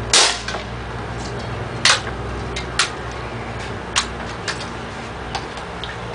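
A Daisy .177 pump-up pneumatic air rifle fires once, a sharp crack right at the start, after it was pumped 30 times. Several lighter clicks and knocks follow, the strongest a little under two seconds later.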